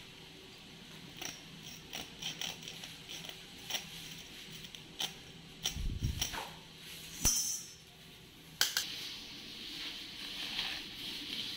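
A large knife cutting nylon cord and then foam tubing: scattered clicks and scrapes of the blade, a dull knock about six seconds in, and a steadier scraping hiss through the last few seconds as it saws into the foam.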